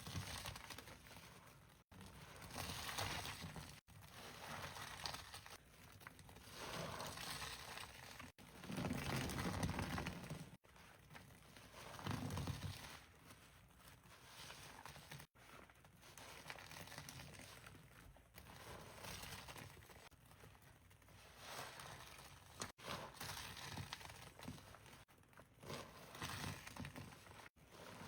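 Hands squeezing and kneading a squishy filled with powdery paste, giving soft crinkling, squishing sounds in short takes broken by abrupt cuts.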